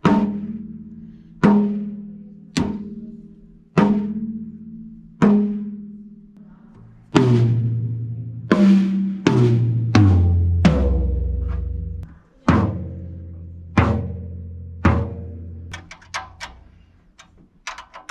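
Freshly tuned drum kit toms being struck, each hit ringing out with a clear pitch and decaying over about a second. There are a few spaced single hits, then a fill that steps down in pitch from the small toms to a long, low boom of the floor tom. Lighter, quicker strokes follow near the end.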